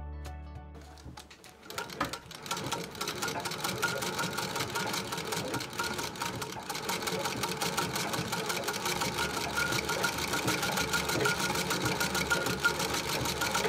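A 1939 Singer 201K sewing machine, driven by its treadle, starts stitching about two seconds in and runs steadily with a fast, even ticking rhythm. This is its first test run after restoration.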